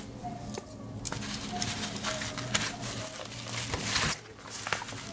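Handling noise as a Victorinox Swiss Army knife is fitted into a fabric organizer pouch: rustling of the pouch with light clicks and taps scattered throughout.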